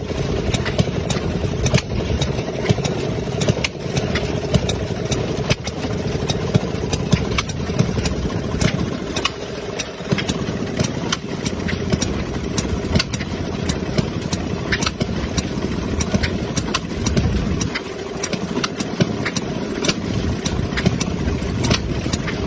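A 1928 washing machine running: its motor drive runs steadily with a mechanical clatter and many sharp ticks.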